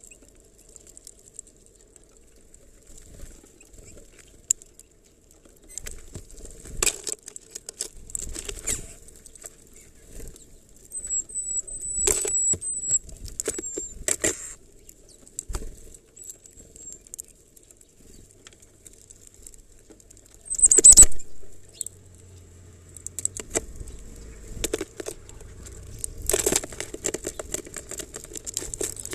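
Small birds feeding at a plastic feeder of black sunflower seeds: scattered taps and rustles of seeds being picked over, with wing flutters. A few very high, thin chirps come about a third of the way in, and a louder flurry about two-thirds through.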